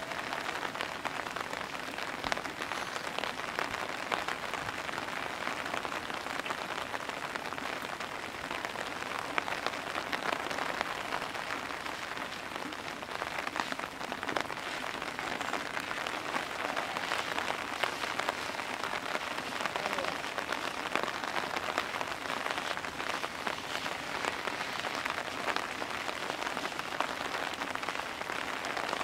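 Heavy rain pouring down steadily, a dense, even patter of drops.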